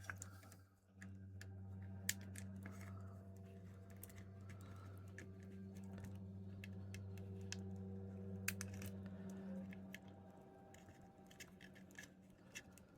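Faint, scattered clicks and taps of small plastic parts being handled as a tiny battery plug is worked into its socket inside a headset, over a steady low hum that fades out about ten seconds in.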